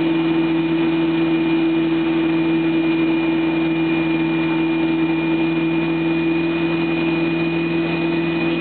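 Motorboat engine running at a steady speed while towing a wakeboarder, a constant drone under a rushing haze of wind and water.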